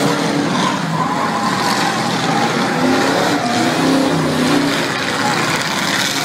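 Engines of a pack of demolition-derby race cars running together, several pitches rising and falling as the cars rev around the track.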